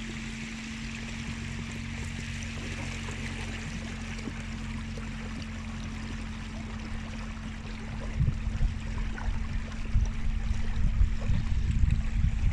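A 24-volt electric trolling motor pushes an inflatable boat at about 1,000 watts, with a steady whine over the rush of water along the hull. About eight seconds in, the boat runs into its own wake, and uneven, louder slaps of water against the hull begin.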